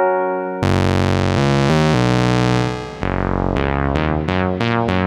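Teenage Engineering OP-XY synthesizer playing its preset sounds. A held chord gives way under a second in to a bright sustained patch over a stepping bass line. About three seconds in, a plucked patch takes over, with quick repeated notes that each ring briefly and fade.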